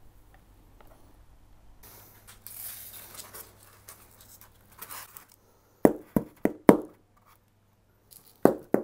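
Soft rustling of loose static grass fibres, then a quick run of four sharp knocks and, near the end, more knocks in fast succession as the scenery board is tapped to shake off the excess grass.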